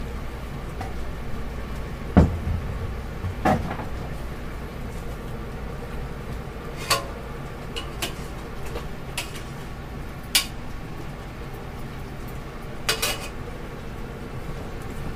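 Hard plastic toy kitchen pieces knocking and clicking as they are set down and fitted together: about eight separate knocks spread through, the loudest a dull knock about two seconds in, over a steady low hum.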